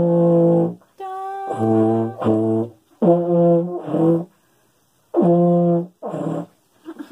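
Baritone euphonium played by a beginner: a string of about six short held low notes with breaks between them, the middle two lower than the rest.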